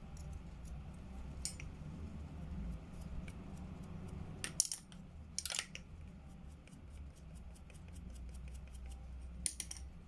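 Light scraping and clicking of a small hand instrument working on a plaster dental model: a few short, sharp scrapes, the loudest two about halfway through and another near the end, over a low steady hum.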